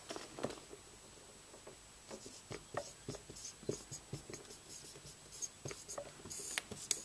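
Dry-erase marker writing on a whiteboard: a series of short, faint pen strokes, coming thicker in the second half.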